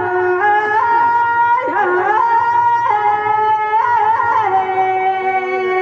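A woman singing a Rajasthani Teja folk song into a microphone, holding long sustained notes that step from pitch to pitch with short slides between them; the last note, from about two-thirds of the way in, is held steady.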